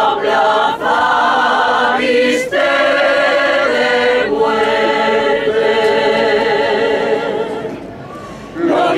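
Choir singing a slow song in long held notes, with short breaks between phrases; one phrase ends about three quarters of the way through and the next begins just before the end.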